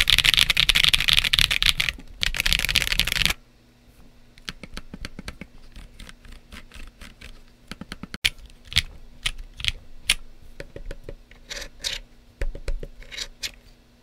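Fast typing on Monsgeek M1 and Keychron Q1v2 75% aluminium mechanical keyboards fitted with Akko Lavender switches and PBT keycaps: a dense run of key clicks that stops about three seconds in, followed by slower, quieter, scattered single clicks.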